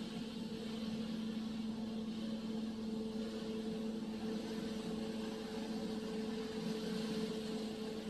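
Touchless car wash spraying foam and water onto the car, heard from inside the cabin: a steady rushing hiss over a steady machine hum.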